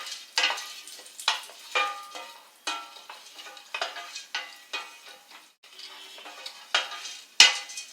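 Roasted gram (pottukadalai) being stirred in a little ghee in a pan, with a light sizzle. The scraping strokes come about once a second, and the loudest one is near the end.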